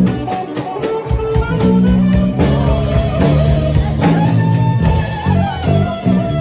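A band playing with electric guitar over a bass line and drums.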